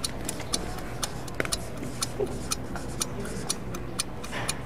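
Ticking-clock sound effect counting down a 30-second timer, with even ticks at about two a second.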